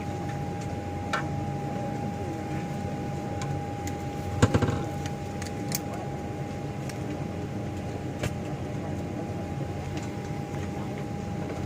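Steady low hum of an airliner cabin at the gate, with a constant thin whine over it. Scattered clicks throughout and a short burst of louder knocks about four and a half seconds in.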